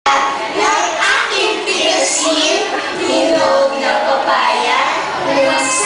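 A group of nursery-age children singing a song together, with music.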